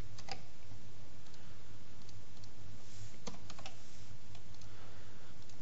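Irregular, spaced-out computer keyboard keystrokes and mouse clicks, with a steady low hum underneath.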